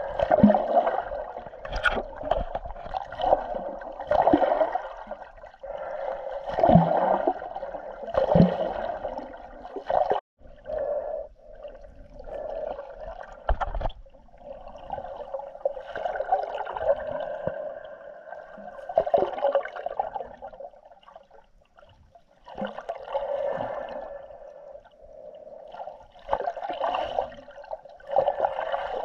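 Muffled sloshing and gurgling of water heard through an action camera's waterproof housing held underwater, swelling and fading in irregular surges.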